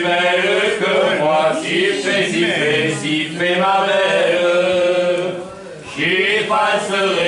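Voices singing a chanted song with long held notes. The singing breaks off briefly about five and a half seconds in, then starts again.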